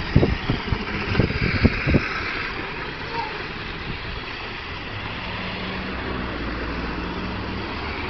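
Steady outdoor noise with a low engine-like hum, broken by several dull low knocks in the first two seconds.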